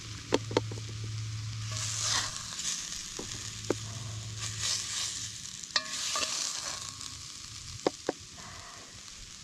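Dove, potatoes and peppers sizzling in a cast-iron Dutch oven, with a fork stirring in the pot and a knife cutting on a wooden cutting board. The sizzle swells and eases, broken by several sharp clicks from the utensils.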